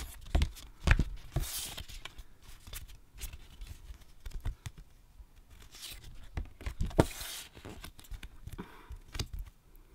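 Stiff glossy postcards being handled and flipped through, sliding against one another with papery swishes and scattered taps. The loudest are sharp taps about a second in and about seven seconds in.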